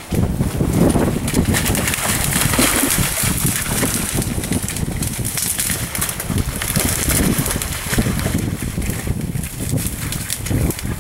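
Wind buffeting the microphone, with rustling of grass and brush underfoot as the hunter walks through field cover.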